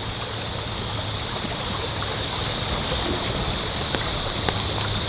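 Steady rushing outdoor ambience of a river, with a strong high hiss over it and a few faint clicks about four seconds in.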